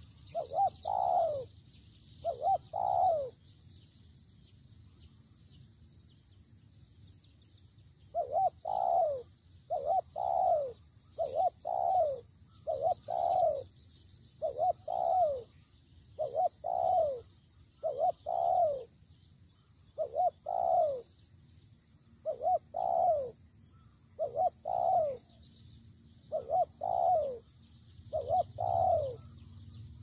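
Spotted dove cooing: short coos that fall in pitch, mostly in pairs. Two pairs come near the start, then after a pause of several seconds a steady run repeats about every second or two. Trappers read this run of calls as the target bird getting worked up.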